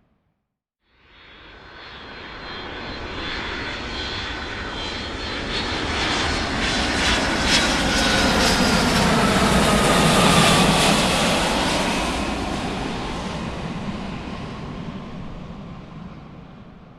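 A large aircraft flying by. Its engine sound fades in, builds over about nine seconds to a loud peak with a high whine that drops in pitch as it passes, then fades away.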